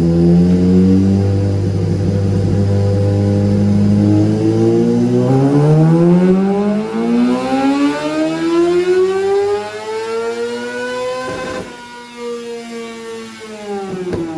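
Kawasaki ZX-6R inline-four engine making a dyno pull. It holds a low, steady note for about five seconds, then revs climb smoothly and steadily toward the top end. Near the end of the climb the throttle is shut abruptly and the revs fall away. The run is a check of the bike's fuelling after it has been richened.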